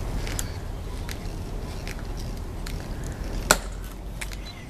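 Metal-tapped heels of marching honor guard sentinels striking the stone plaza in slow cadence, a sharp click about every 0.8 s. A louder heel click comes near the end as they halt. A low rumble of wind on the microphone sits underneath.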